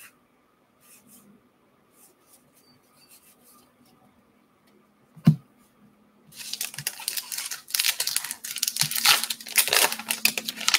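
A single sharp knock about five seconds in, then the wrapper of a Topps Gypsy Queen baseball card pack being torn open and crinkled by hand from about six seconds in.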